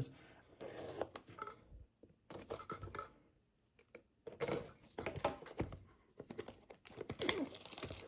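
Hobby knife cutting the plastic shrink wrap on a cardboard product box: irregular short scratching strokes, with a brief pause about three seconds in.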